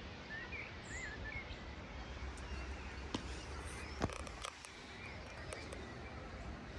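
Waterfall rushing as a steady wash of falling water. A bird chirps a few times early on, and two sharp clicks come about three and four seconds in.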